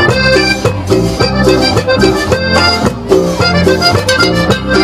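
Live cumbia band playing an instrumental passage: a melodic lead line over steady bass and a regular percussion beat, with no singing.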